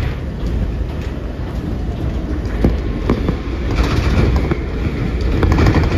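New York City Subway train running on elevated track, heard from inside the car. There is a steady low rumble, with irregular clicks as the wheels cross rail joints.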